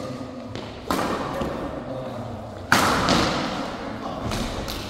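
Badminton rackets striking the shuttlecock in a rally: a sharp hit about a second in and a louder one near three seconds in, each ringing on in the hall, with lighter hits after.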